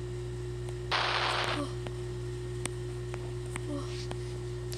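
A steady low hum with a constant tone above it, broken about a second in by a short burst of hiss lasting about half a second, and a few faint clicks.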